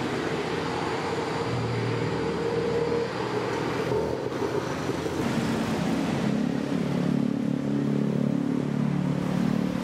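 Road traffic going by on a city street. A car engine gets louder in the second half.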